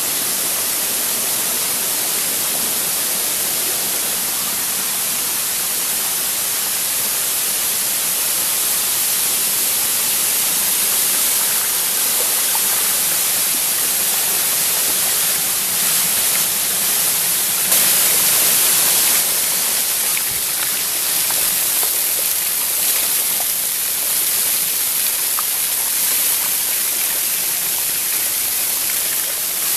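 Small waterfall cascading over mossy rock ledges: a steady rush and splash of falling water, briefly louder a little past halfway.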